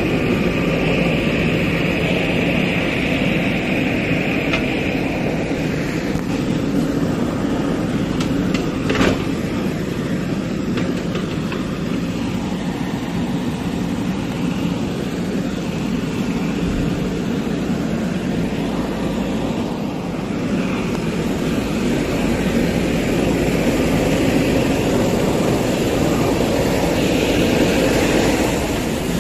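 Diesel engine of a JCB 3DX backhoe loader running steadily under hydraulic load as its bucket scrapes leftover soil out of a tipped-up dump truck body. A single sharp knock comes about nine seconds in.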